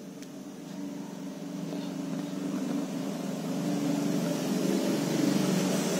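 A steady engine-like hum that grows gradually louder.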